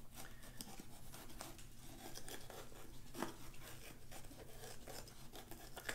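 Small knife cutting around the top of a peeled bell pepper on a wooden cutting board: faint crisp crunching and small clicks, one a little louder about three seconds in.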